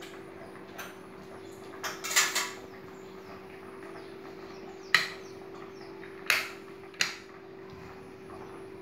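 Steady hum of a homemade quail-egg incubator running, with several sharp clicks and knocks: a cluster about two seconds in, then three more between five and seven seconds in.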